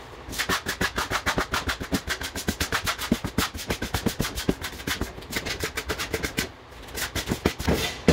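Wide metal putty knife tapping and scraping rapidly against a plywood board as concrete-effect plaster is dabbed and blended on, about eight strokes a second. The strokes pause briefly about six and a half seconds in, then a few more follow.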